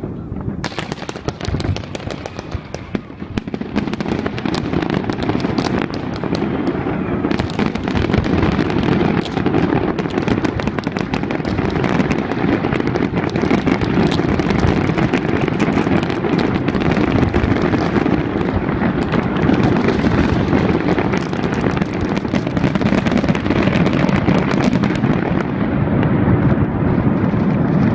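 A fireworks display going off, with a dense, continuous barrage of bangs and crackles that builds about a second in and stays loud, easing slightly near the end.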